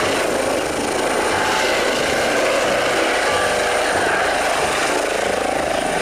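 Eurocopter EC135 air-ambulance helicopter hovering low, its rotor and turbines running steadily with a thin, high whine.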